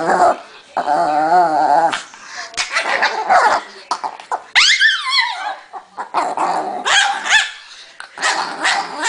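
Angry chihuahua growling and barking: a long wavering growl about a second in, a high yelp that falls steeply in pitch about halfway through, then a run of short barks.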